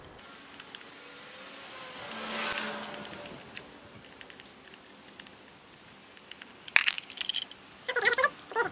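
Small plastic clicks as a screwdriver backs screws out of a toy solar helicopter's plastic base, then sharp clicks and squeaky creaking near the end as the plastic gearbox housing is pulled free. A rushing noise swells and fades about two to three seconds in.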